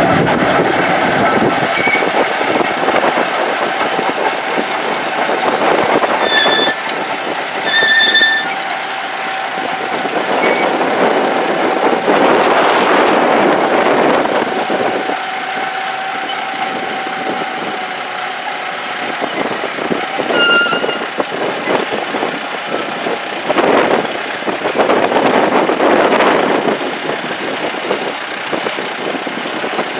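Caterpillar D7 crawler bulldozer running, its diesel engine and steel tracks giving a dense, steady machine noise. A high, thin whine rides over it and steps up in pitch about two-thirds of the way through.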